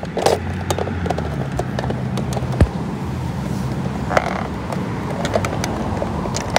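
Humane live-catch mousetrap being handled and worked at because its door won't open: scattered short clicks and rattles, with one sharp knock about two and a half seconds in. A low steady hum runs underneath.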